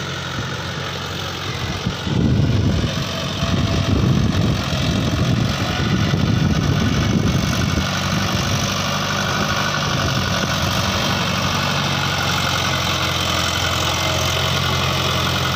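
Mahindra 575 tractor's diesel engine running steadily as the tractor works on iron cage wheels through a flooded paddy field. It grows louder and rougher about two seconds in, then settles to an even run.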